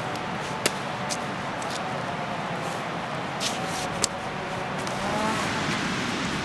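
Hand hoe chopping into garden soil while potatoes are dug up, with a few sharp knocks of the blade, over a steady rushing background noise.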